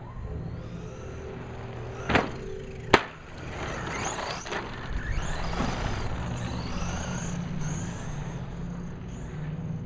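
Brushless-motor RC truck driving. Its motor whine rises and falls repeatedly as it accelerates and slows, over the rumble of the tires on the ground. Two sharp knocks about two and three seconds in are the loudest sounds.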